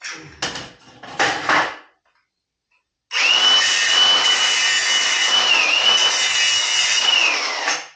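A few short scraping rubs. About three seconds in, a high-speed power tool starts and runs steadily for about four and a half seconds with a high whine that dips briefly once, then cuts off just before the end.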